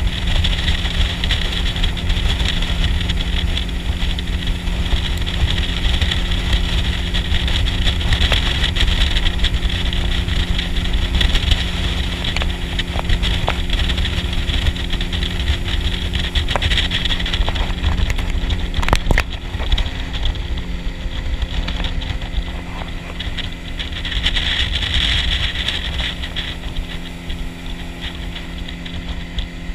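An engine running steadily at an even pitch. A high hiss over it fades and comes back, and there is a single sharp knock about two-thirds of the way through.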